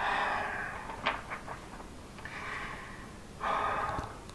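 A man breathing audibly in a pause between sentences: three breaths, with a short click about a second in.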